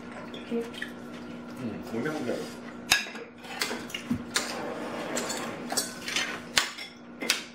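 Cutlery clinking and scraping against plates during a meal, with a handful of sharp clinks in the second half.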